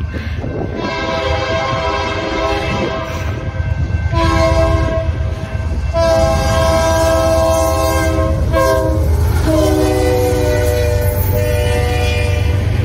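Air horn of a GE C44-9W diesel freight locomotive sounding a grade-crossing signal: several long blasts, a short one about nine seconds in, then a last long blast held as the train reaches the crossing. Under the horn is the steady low rumble of the locomotives' diesel engines.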